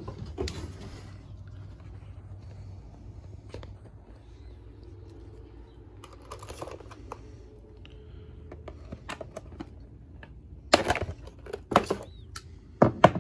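Light handling noise and small clicks from a cardboard box and a plastic mini RC truck, then a few louder sharp clicks near the end as side cutters work at the zip ties holding the truck into the box.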